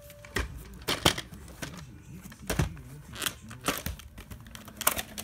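Sharp irregular plastic clicks and knocks from a VHS tape's white plastic clamshell case being handled and opened, and the cassette inside being moved.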